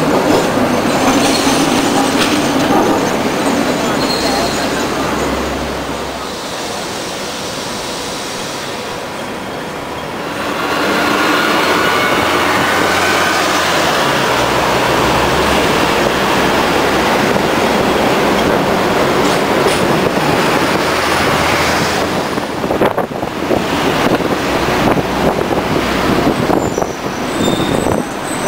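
Hong Kong double-decker electric tram running along its street rails, heard from the top deck: a steady running noise of the car and its wheels on the track, with wheel squeal on the rails. It eases off for a few seconds near the middle and grows louder again.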